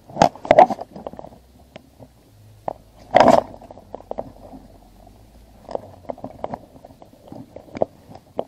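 Wet splashing and scraping at a water-filled collapsible bait bucket as gloved hands put a freshly caught rockfish into it, mixed with rustling of a waterproof jacket. The sound comes in short, irregular handling noises, the loudest about three seconds in.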